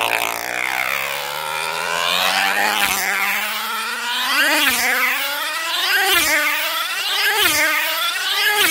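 A tether race car's small two-stroke model engine running at high revs as the car circles the track on its tether. The pitch climbs over the first two seconds, then the car sweeps past about every second and a half, each pass rising then falling in pitch, the laps coming slightly quicker each time.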